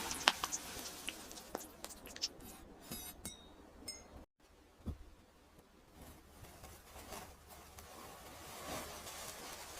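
Faint scraping and small ticks of kinetic sand being cut and handled, with a sudden brief dropout to silence a little past four seconds in.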